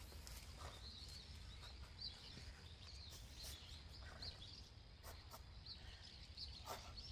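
Near silence: a low steady background rumble with faint, scattered bird chirps and a few soft clicks.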